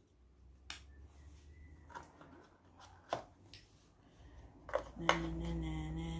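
Small plastic camera parts and packaging handled, with scattered clicks and knocks, the sharpest about three seconds in. About five seconds in a steady low hum starts.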